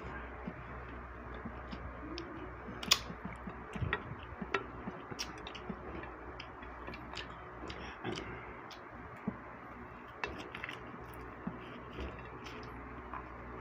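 Eating with the hands: scattered small clicks and cracks of crab shell, fish and fingers picking at food on plates, the sharpest click about three seconds in, over a low steady hum.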